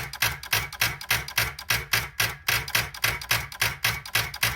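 Starter on a 2012 Chrysler Town & Country chattering in rapid, even clicks, about four or five a second, as the key is held. The battery is too weak to turn the engine, its voltage dropping to about 4 volts under the starter's pull.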